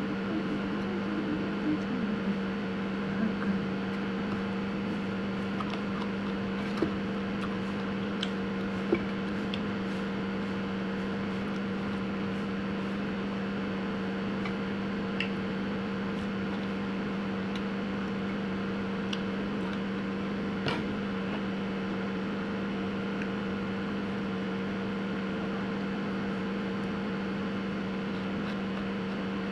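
A steady electrical or motor hum, with a few light clicks and taps scattered through it.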